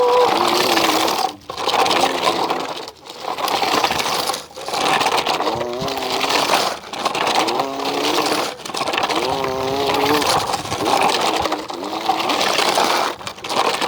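A boy making tractor-engine noises with his mouth, a vocal engine imitation held in phrases of one to two seconds with short breaks for breath, its pitch wavering up and down.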